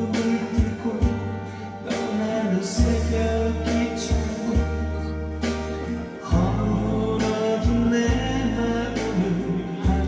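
A man singing into a microphone over a backing track with bass and drums.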